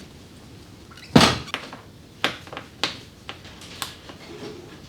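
Sharp clicks and knocks of ATV plastic body panels being handled and pulled loose, one louder knock about a second in, then four or five lighter clicks.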